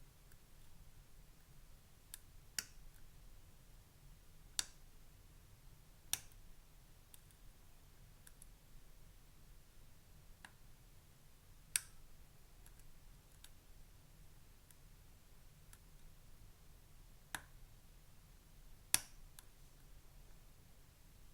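Scattered small, sharp metallic clicks from a hook pick and tension wrench working the pins of a Paclock Universal Core System lock core during single-pin picking: about seven louder clicks at irregular intervals, with fainter ticks between.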